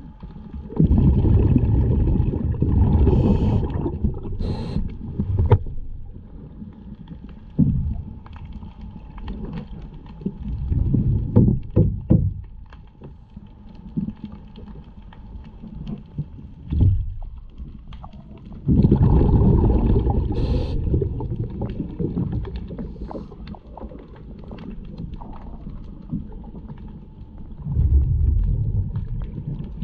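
Underwater sound of a diver's breathing: exhaled bubbles rumble past the microphone in long bursts about every eight or nine seconds, with brief hisses and scattered knocks between them.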